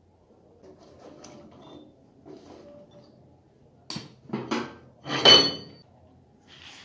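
Steel parts clanking against the metal lathe as they are handled, with the lathe not running: a few sharp knocks in the second half, the loudest a ringing metallic clank, then a lighter clink near the end.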